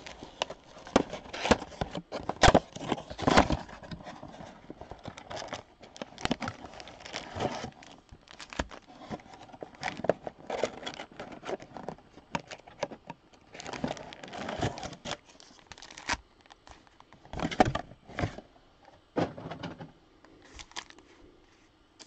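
Cardboard trading-card mega box being torn open and its wrapped card packs handled: irregular ripping, tapping and crinkling of paperboard and pack wrappers.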